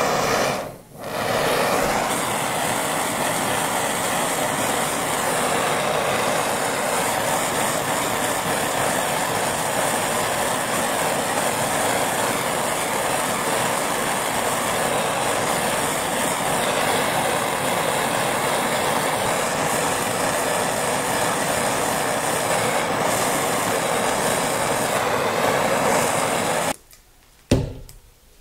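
Handheld propane torch burning steadily while scorching a wooden hatchet handle. The flame noise starts about a second in after a short burst and cuts off suddenly near the end, followed by a single knock.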